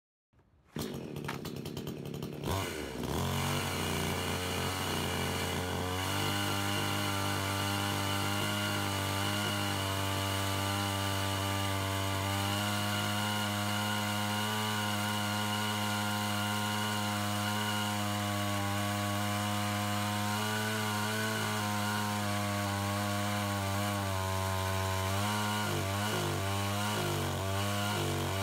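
Zomax ZM5603 two-stroke chainsaw with a 22-inch bar and ripping chain, mounted in a rail mill and running under load as it rips lengthwise through a log. It comes in about a second in and holds a steady engine note. Near the end the pitch wavers up and down.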